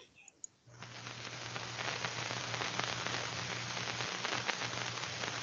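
Hiss and crackle of an old film soundtrack with a steady low hum, fading in about a second in and then holding steady.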